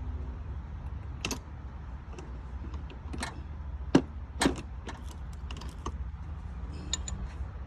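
Hand tools clicking and clinking on metal fasteners under the hood while a bolt is being tightened: a handful of separate sharp metallic clicks, the loudest about four seconds in, over a steady low hum.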